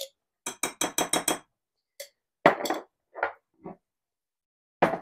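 Metal spoon clinking and tapping against a glass mustard jar and a glass mixing bowl as Dijon mustard is scraped out: a quick run of about six clicks, then scattered single clinks, along with a glass jar being set down on the countertop.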